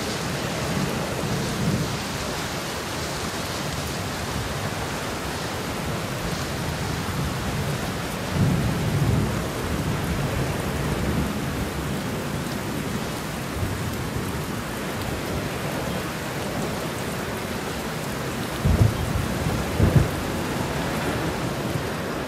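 Steady rain with thunder: a low rumble of thunder about eight seconds in, and two sharp, loud booms about a second apart near the end.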